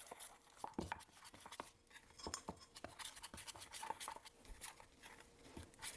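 Faint, irregular scraping and clicking of a utensil against a bowl as a thick batter of flour, cornstarch, baking powder, salt and egg is stirred, before any water is added.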